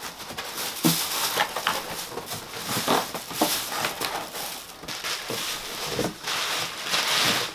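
Plastic bags and bubble wrap crinkling and rustling as they are stuffed by hand into a cardboard box as packing, an uneven run of crackles and small clicks.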